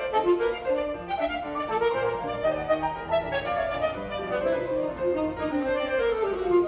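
Saxophone playing a quick, syncopated ragtime melody over grand piano accompaniment.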